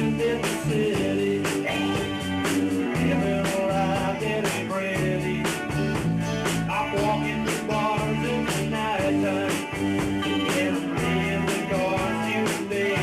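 A live rock band playing a song: a drum kit keeping a steady beat of about two strikes a second under guitar and bass.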